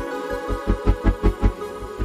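Background music: a pulsing bass beat, about five a second, under sustained synth tones. The beat drops out for a moment at the start, then comes back.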